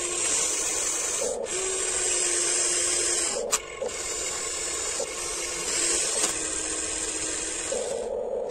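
Small electric motors of a Huina 1594 RC excavator running with a high whine, with one sharp click about three and a half seconds in. The high whine drops away near the end.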